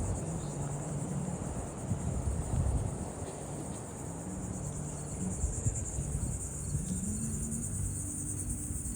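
Constant chorus of cicadas, a steady high buzz that pulses rapidly, with a low rumble underneath.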